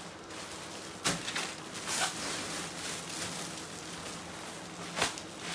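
Clothes in clear plastic bags rustling and crinkling as they are rummaged through in a pile, with two sharp knocks, about a second in and near the end.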